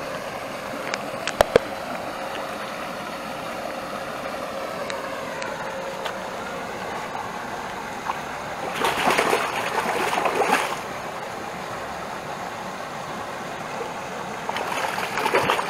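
Water splashing as a landing net holding a tamba fish is dipped into the pond and the fish thrashes free: two bursts of splashing, one about nine seconds in lasting two seconds and another near the end, over a steady hiss.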